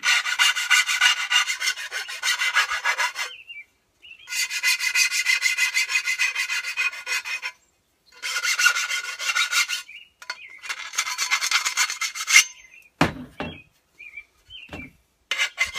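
Hand file rasping back and forth over the sawn end of a steel strut channel in quick strokes, deburring the cut: four runs of filing with short pauses between them. Near the end come a few knocks as the file is set down and the strut turned, then the filing starts again.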